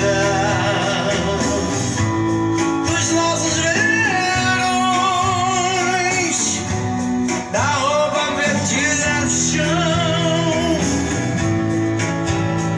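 A recorded song, singing with vibrato over guitar and band accompaniment, played back through a sound system of Magnum 200 W RMS passive speakers driven by an Audio Leader power amplifier.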